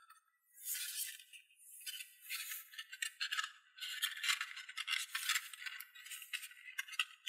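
Folded paper rustling and crinkling in uneven bursts as hands press a small paper piece into a folded paper boat hull.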